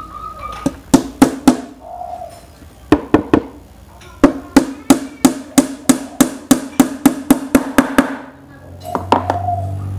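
Hammer driving nails into the panels of a glued mixer box: a set of three blows, another set of three, then a steady run of about fifteen quick blows, roughly four a second, each a ringing knock.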